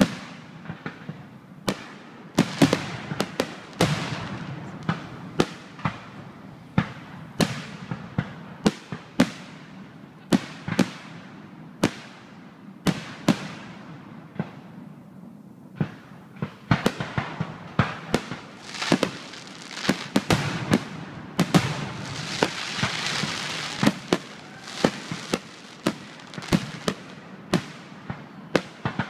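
Aerial fireworks shells bursting one after another: dozens of sharp bangs, irregularly spaced and sometimes in quick clusters, many trailing off in a short fading hiss. There is a dense stretch of crackling about three quarters of the way through.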